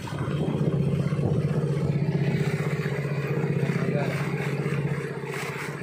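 Small fishing boat's outboard motor running at a steady speed while the boat trolls, a little quieter near the end.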